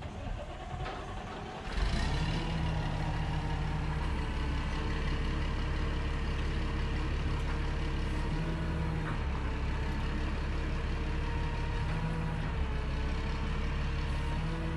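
A machine starts running about two seconds in and keeps going with a steady, even low drone.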